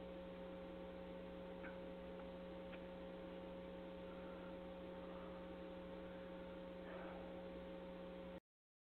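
Steady electrical mains hum with faint hiss and a few faint ticks left on the recording after the speech ends. It cuts off abruptly to dead silence near the end.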